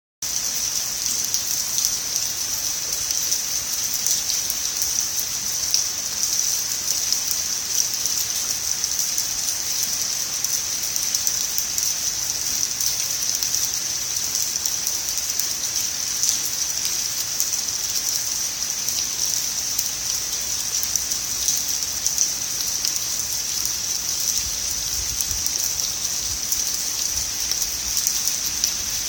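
Steady rain from an approaching typhoon, a constant even hiss with many small drop ticks through it.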